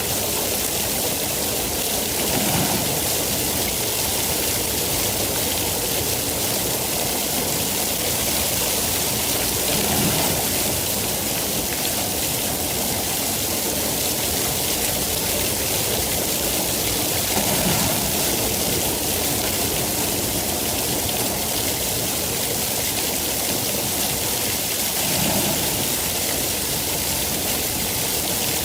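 Steady heavy rainfall, a continuous even hiss with a faint low swell about every seven seconds.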